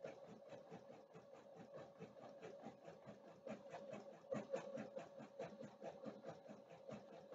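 Husqvarna Viking Designer Topaz 50 embroidery machine stitching a letter into nylon webbing: a faint, fast, even run of needle strokes over a steady motor hum.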